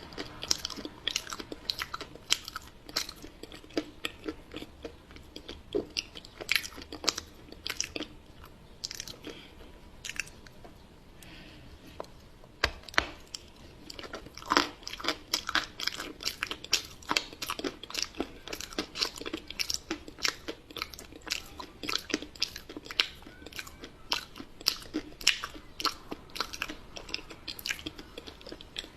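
Close-miked chewing and crunching of a cocoa-dusted chocolate pie, a rapid run of crisp crumbly crunches between mouthfuls. The crunching thins out for a few seconds about a third of the way through, then picks up again.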